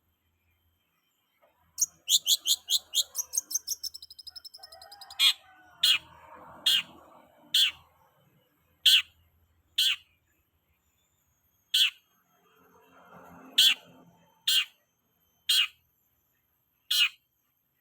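A songbird calling. First comes a quick run of high repeated chirps that runs into a short trill. Then single sharp chirps that sweep downward come every second or two.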